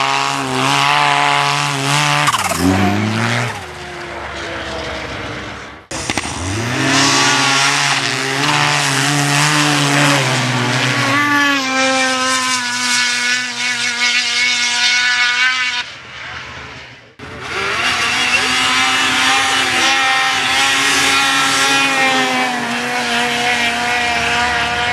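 Racing snowmobiles at full throttle, pairs of sleds launching and running side by side, their engines holding a high, nearly steady pitch. The sound breaks off abruptly twice where separate runs are joined.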